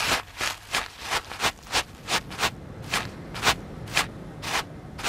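Salt in a pouch being crushed and ground in a steady rhythm, a series of crunches that stand in for a large animal's footsteps in snow. About three crunches a second at first, slowing to under two a second near the end.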